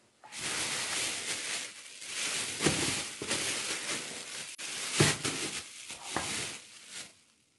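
Thin plastic freezer bag of frozen soaked chickpeas being handled and squeezed: crinkling plastic with the frozen chickpeas crunching against each other, and two louder knocks, about two and a half and five seconds in.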